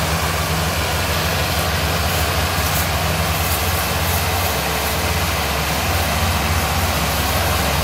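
Two Massey Ferguson 385 tractors' four-cylinder diesel engines running steadily under heavy load, working together to pull a loaded sugarcane trailer.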